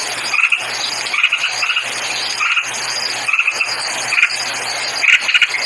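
Repeated short bird chirps, in quick clusters about once a second, over a steady high insect-like buzz and a low hum.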